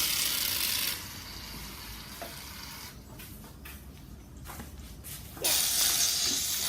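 Water running from a tap, a steady rushing hiss that stops about a second in and starts again about a second and a half before the end.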